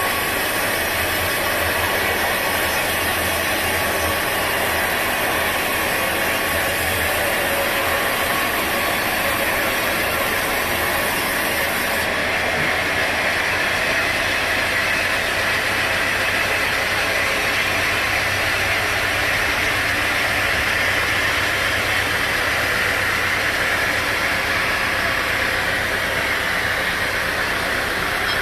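Sawmill machinery running with a steady, unbroken mechanical noise.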